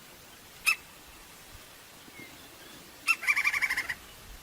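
Crimson-crested woodpecker calling: one short sharp note about a second in, then about three seconds in a rapid chattering series of high notes lasting under a second.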